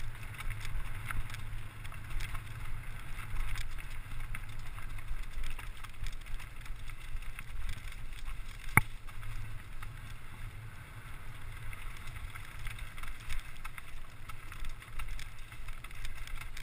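Mountain bike descending a rough dirt and rock trail at speed: wind rumbling across the microphone, tyres crunching over the ground and the bike rattling with small irregular clicks, with one sharp click about nine seconds in.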